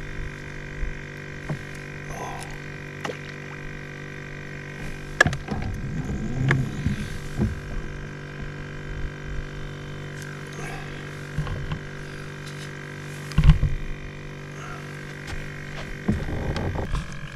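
A steady hum of several even tones, with scattered knocks and bumps; the loudest is a low thump about thirteen seconds in.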